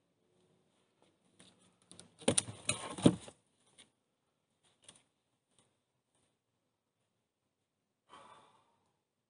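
Wooden knocks and scraping as logs in a dugout's log wall are handled: a short bout with two sharp knocks about two and three seconds in, a few faint clicks after it, and a brief soft scrape near the end.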